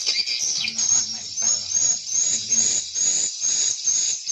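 Swiftlets calling: a rapid, regular series of short, high, rising chirps, about two a second, over a dense hissing twitter.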